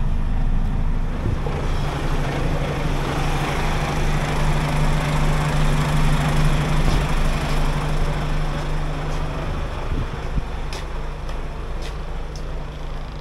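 Truck's diesel engine idling steadily, with a broad rushing noise swelling over it through the middle and easing off, and a few sharp clicks near the end.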